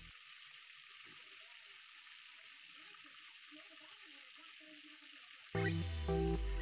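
Whole chicken deep-frying in a pan of hot oil, a steady sizzle. Background music comes in suddenly about five and a half seconds in and is the loudest thing from there on.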